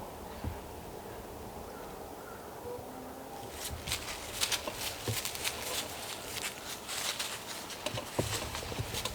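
Footsteps crunching through dry leaf litter, a run of short crackling steps that starts about three and a half seconds in.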